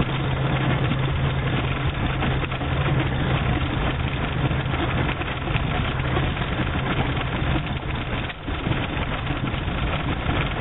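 Inside the cab of a 1990 Jeep Cherokee driving slowly on a muddy dirt trail: its 4.0-litre straight-six engine runs with a steady low hum under rough tyre and body noise, easing briefly a little over eight seconds in.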